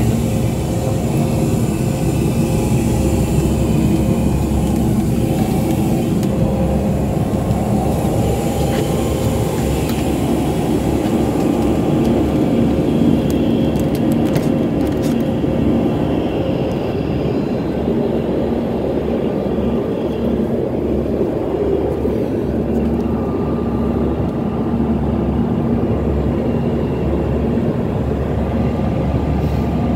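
Steady cabin noise of a small airliner: a loud, even rumble of engines and airflow with a steady hum. About halfway through come a few light clicks as the lavatory door's slide lock is worked.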